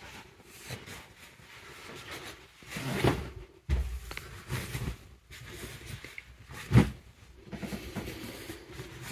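Bedding being handled: a duvet and pillows pulled about and rustling, with a few soft thumps, the loudest about seven seconds in.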